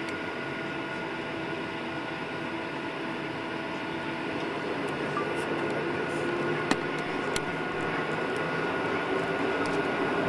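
Cabin noise aboard a Boeing 737-800 on the ground: the steady hum and hiss of its CFM56 engines and air conditioning, with a thin steady whine, slowly growing louder. Two small clicks come about seven seconds in.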